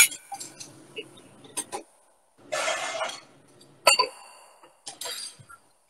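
Kitchen clatter of bowls and dishes knocking and clinking at a sink. There is a sharp knock at the start, a short rushing noise about two and a half seconds in, and a clink that rings briefly about four seconds in.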